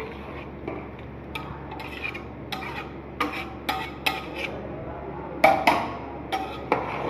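Metal cooking spoon knocking and scraping against a metal kadhai while the chicken is stirred: about a dozen sharp clinks at uneven intervals, some briefly ringing, the loudest two close together about five and a half seconds in.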